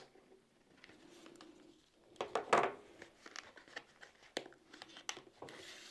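Small retail package of an NVMe SSD being slit with a folding pocket knife and torn open by hand: scratchy rustling and tearing, loudest about two and a half seconds in, with a few sharp clicks later on.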